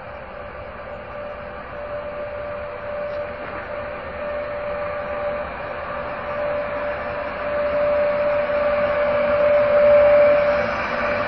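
FS E.402B electric locomotive hauling a passenger train slowly past, growing louder as it comes by and loudest about ten seconds in. A steady whine sounds over the rumble of the wheels.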